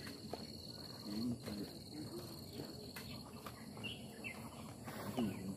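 An insect trilling steadily at a high pitch, stopping a little past halfway through, over faint outdoor background sound.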